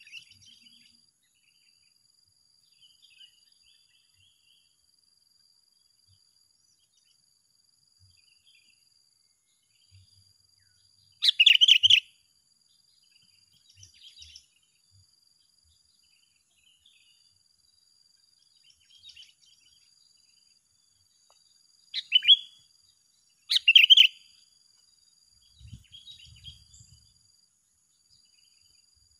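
Sooty-headed bulbuls calling in short, loud chattering bursts: one about eleven seconds in and two close together a little past twenty seconds, with fainter calls in between. A faint, steady high tone runs underneath.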